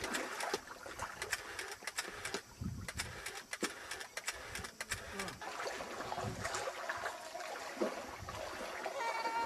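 Shallow water lapping and trickling over wet sand at the shoreline, with crackling clicks and gusts of wind buffeting the microphone.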